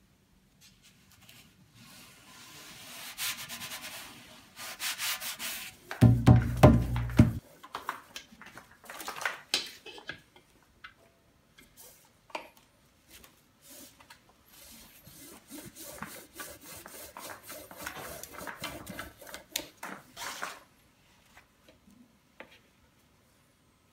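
Handling noise from working on a wooden djembe and its rope tuning: scratchy rubbing and pulling in two long stretches, with scattered clicks. A heavy, low bump about six seconds in is the loudest sound.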